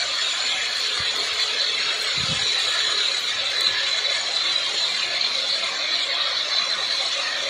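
Homemade helicopter running on the ground, its engine and spinning main and tail rotors making a steady, high, hissing whine.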